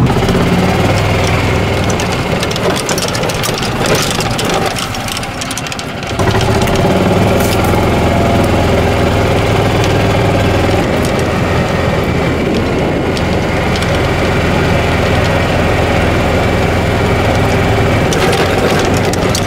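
Small gas golf-cart engine running as the cart drives along a sandy dirt track, with scattered rattles. It drops lower for a few seconds, then picks up sharply about six seconds in and runs steadily after that.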